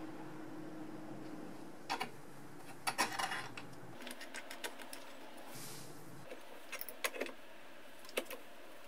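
Scattered light metallic clicks and clinks of a brass compression nut being threaded onto a 10mm Alde gas bubble tester's fitting over a 3/8-inch copper pipe and olive, and adjustable spanners being set on the joint to tighten it.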